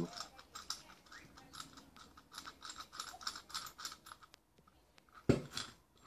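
A metal key turning a screw inside a homemade metal padlock: a run of small metallic clicks, a few a second, with a brief lull, then one louder knock a little after five seconds in.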